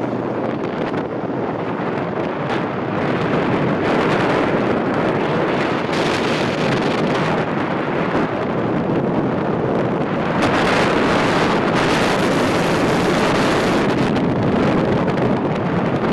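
Wind rushing and buffeting over the microphone of a moving motorbike, with its running and road noise underneath; it gets louder about four seconds in and again about ten seconds in.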